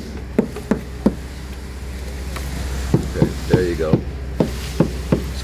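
Concrete pump truck's engine running with a steady drone. About ten short sharp knocks come over it, irregularly spaced and grouped more closely in the second half.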